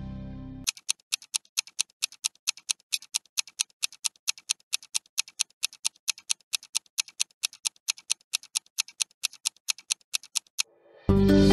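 Ticking countdown-timer sound effect: even, sharp ticks at about four a second for some ten seconds. Background music cuts off under a second in and comes back in near the end.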